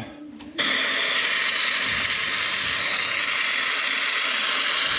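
Compressed-air spray gun hissing steadily as it blows rust-proofing fluid through a long wand into the body's inner corners. The hiss starts suddenly about half a second in.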